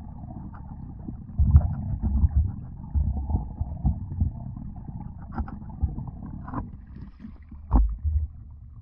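Water pouring into a pond and churning up a cloud of bubbles, heard underwater as a muffled, low churning rumble. Irregular thuds come through it, the loudest about a second and a half in and again near the end.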